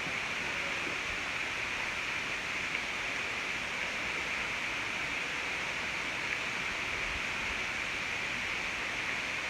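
Steady hiss of diced onions and bell peppers sautéing in butter in a pan over medium heat.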